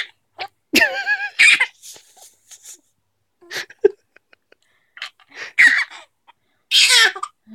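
A baby giggling and letting out high, wavering squeals in several short, breathy bursts, with an adult laughing along.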